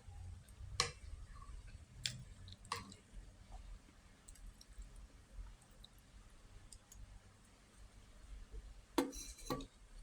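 Eating sounds: soft chewing and wet mouth clicks, with a few sharp clicks, one about a second in, two more around two to three seconds in, and a quick cluster near the end.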